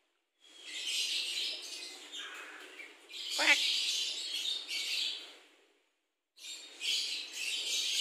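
Javan myna calling in harsh, hissing chatter, with one sharp squawk about three and a half seconds in. The calling breaks off twice, briefly.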